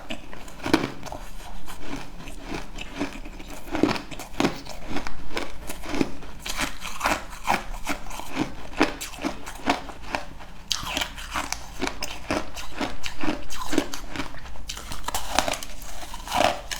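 A person biting and chewing crunchy food: a quick, uneven run of crisp crunches and crackles.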